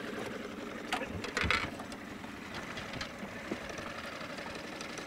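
Small outboard kicker motor running steadily at trolling speed, with a couple of brief louder noises about a second in.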